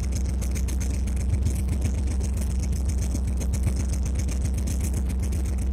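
EMD SD24 diesel locomotive's turbocharged 16-cylinder 567 engine running steadily, heard from inside the cab as a fast, even low throb. Irregular clicks and rattles sound over it throughout.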